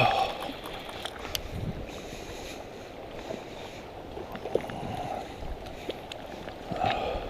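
Steady rush of stream water, with a few faint clicks scattered through it.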